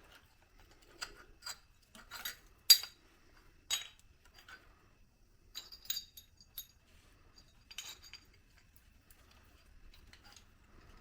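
Scattered metallic clinks and taps of tools and hardware being handled while working on a Jeep's shock mounts. There are about a dozen separate strikes with a bright ring, the sharpest one nearly three seconds in.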